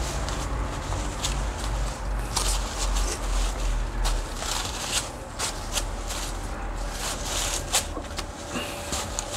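Tissue paper and newspaper wrapping crinkling and rustling as it is pulled and unwrapped by hand, in irregular crackles. A steady low hum runs underneath.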